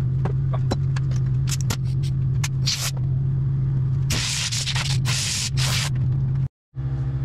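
Compressed air hissing in short bursts from a shop air hose and its air-powered cutting tool, two longer bursts about halfway through, over a steady low hum with scattered light clicks.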